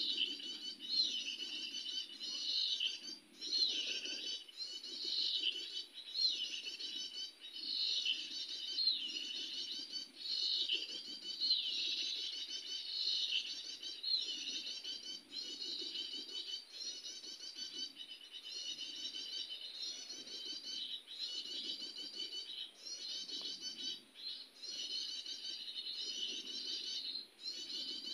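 Small songbirds chirping and singing in quick, repeated phrases, about one a second.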